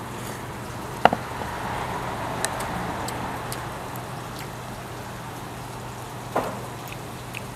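Shabu hotpot broth bubbling with a steady hiss. Two sharp knocks come about a second in and again near the end.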